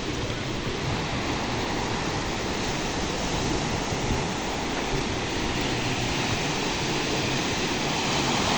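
Sea waves washing onto the shore in a steady rush of surf, swelling and easing gently.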